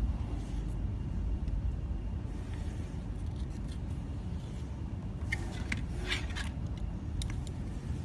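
Steady low background rumble, with a short run of crackling and scraping about five to six and a half seconds in and a single click a little after, from a soldering iron tip working solder onto a wire joint on an LED board.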